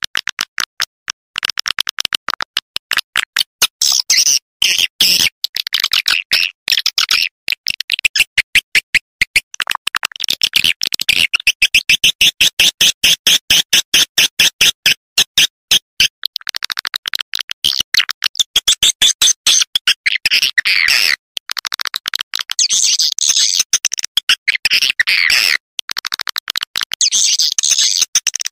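Swiftlet calling lure track: dense, rapid high-pitched chirping and clicking twitter of swiftlets, running in long stretches broken by short gaps.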